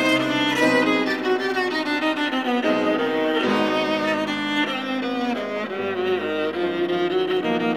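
Viola and grand piano playing a contemporary classical sonata: long bowed viola notes that shift in pitch every second or so, with piano underneath.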